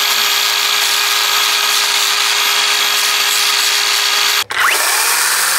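Angle grinder with a sanding disc running steadily and grinding against the drive links of a chainsaw chain, dressing off the mushroomed burrs left after the chain was thrown so it runs around the bar smoothly. The sound breaks off sharply about four seconds in and resumes just as loud a moment later.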